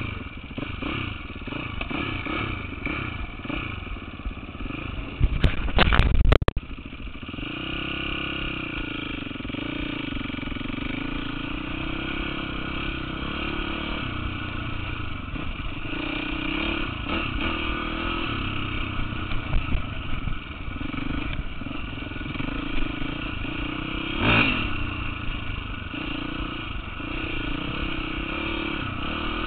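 Dirt bike being kickstarted: a loud burst about five to six seconds in as it fires, then the engine settles into a steady idle.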